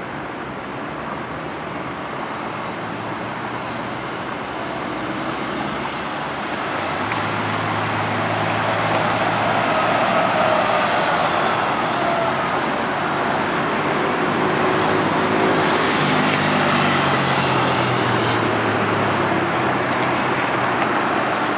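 Street traffic, with a city bus's engine running close by: its steady hum comes up about seven seconds in and stays. A high thin squeal sounds around the middle as the bus stands at the curb.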